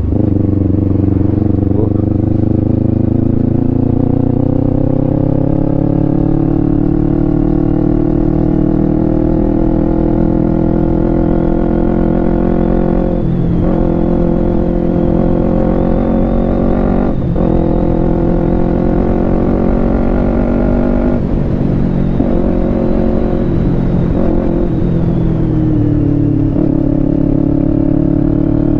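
Kawasaki Ninja 250 FI's parallel-twin engine running on the move, as heard from the rider. The engine note climbs over the first several seconds and then holds fairly steady, with two brief dips in the middle. Near the end it falls and picks up again.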